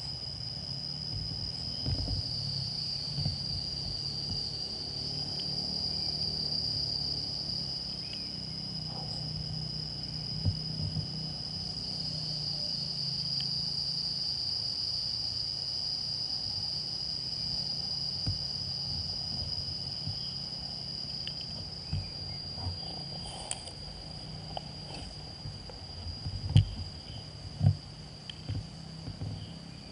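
Insects droning in a steady, high-pitched, unbroken chorus, over a low rumble, with a few soft knocks near the end.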